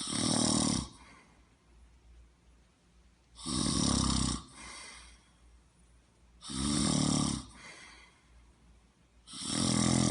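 A person snoring: four loud snores about three seconds apart, each lasting about a second and followed by a quieter breath.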